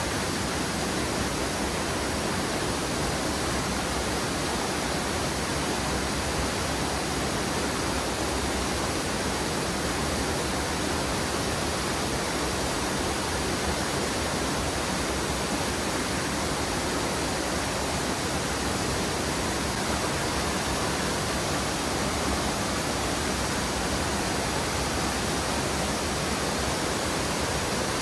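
Steady, unbroken rush of water from the Blanchard Springs waterfall as it pours out of the bluff.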